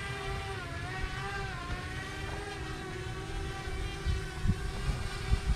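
Small quadcopter drone (DJI Mini) hovering as it is brought in to land, its propellers whining with a pitch that wavers. A low rumble underneath, with a few low thumps near the end.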